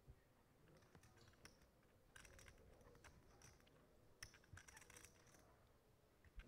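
Faint, scattered clicking of poker chips being handled at the table, in small clusters of quick clicks.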